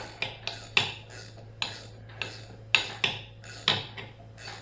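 Hammer tapping on metal: about ten sharp, unevenly spaced strikes, each with a short ring.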